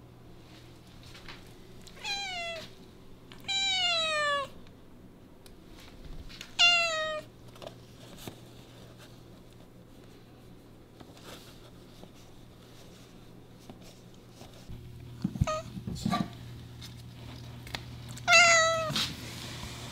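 Domestic cat meowing about six times, each meow sliding down in pitch, the longest lasting about a second; two short ones come about fifteen seconds in, alongside a couple of soft thumps.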